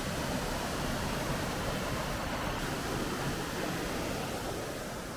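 Steady rushing water, an even hiss that eases slightly near the end.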